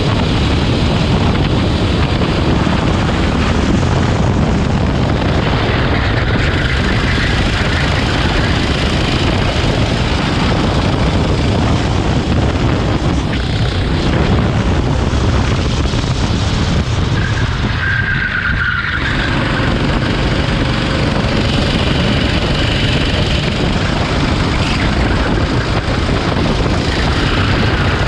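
Onboard rental go-kart engine running at racing speed with wind on the microphone, the tyres squealing briefly through corners several times, most strongly about two-thirds of the way through as the engine note briefly drops.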